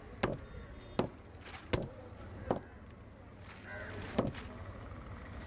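Heavy knife chopping through fish on a wooden block: four sharp chops about three-quarters of a second apart, then one more about four seconds in. A crow caws briefly just before the last chop.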